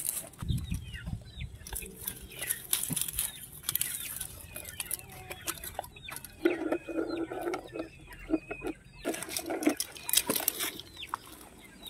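Dry leaves rustling and hen's eggs clicking against each other as they are lifted by hand from a nest of leaves and set into a plastic container, with a chicken clucking a few times in the second half.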